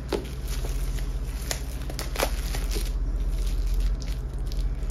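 Clear plastic shrink wrap crinkling and crackling as it is peeled off a hardcover book, with a few sharp crackles. A steady low hum runs underneath.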